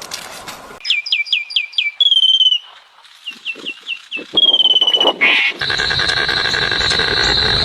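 A songbird singing: runs of quick, high, down-slurred chirps and short trilled phrases, then a long steady high-pitched note starting about two-thirds of the way through.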